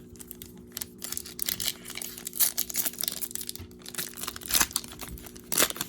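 Wrapper of a Panini Prizm basketball card pack being torn open and crinkled by hand, a run of irregular crackles with the loudest rip near the end; it rips open easily.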